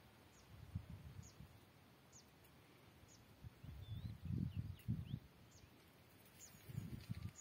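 A small bird calling faintly: a thin, high, downward note repeated about once a second, with a few brief higher chirps midway. Low muffled bumps on the microphone come and go and are the loudest sounds.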